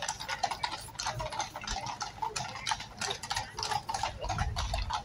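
Carriage horses' hooves clopping on the road as two-horse carriages trot past, a quick, uneven run of overlapping clops several times a second.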